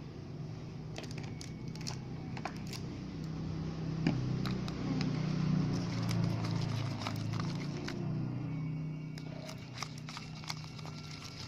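Sticky homemade slime being kneaded and stretched by hand, with small wet clicks and crackles as it pulls apart, while fresh activator is worked in to take away its stickiness. A low drone underneath swells in the middle.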